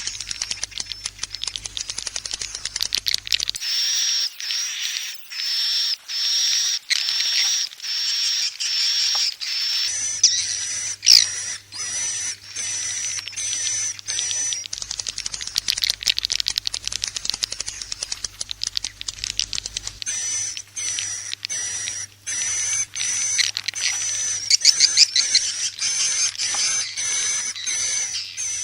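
Edible-nest swiftlet lure call: a dense, rapid chatter of twitters and clicks, with a high chirp repeating about once a second. It is the kind of call track played to draw swiftlets into a swiftlet house to roost and nest.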